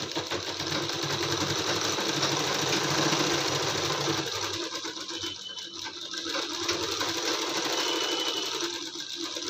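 Sewing machine running steadily as it sews a long rough (basting) stitch through the cotton fabric of a blouse panel, a temporary seam meant to be unpicked after hemming. It eases off briefly around the middle, then runs on.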